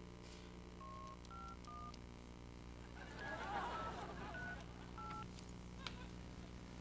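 Touch-tone dialing on a corded push-button phone handset: a series of short two-tone beeps, one per key press. A brief, louder jumbled sound comes about halfway through.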